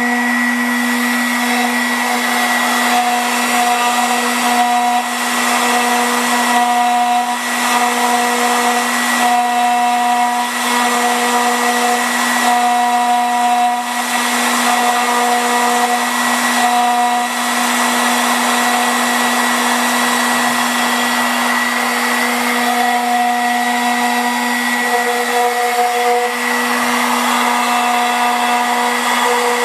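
CNC router spindle running steadily as its small bit carves relief into a marble gravestone: a constant hum and whine under a gritty cutting noise, with higher tones that come and go every second or so as the cut goes on.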